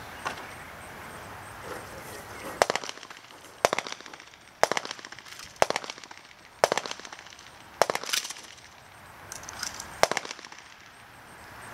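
A string of about eight gunshots, roughly one a second, starting a couple of seconds in, each with a short ringing tail.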